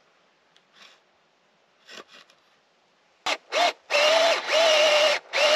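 Cordless drill boring a hole through a wooden board, about 1 1/8 inch across to take the antenna pole. It starts a little past three seconds in with two short trigger pulls, then runs in longer spells with a steady motor whine over the noise of the bit cutting wood.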